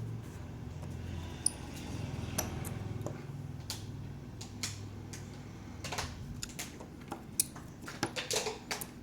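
Scattered light clicks and taps of a small screwdriver and tiny screws being handled while an iPad is reassembled, over a low steady hum.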